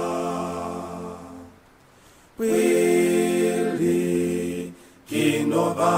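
Unaccompanied singing of an Oshiwambo hymn. A held final note ends a verse about a second and a half in. After a short pause the next verse begins, with long held notes.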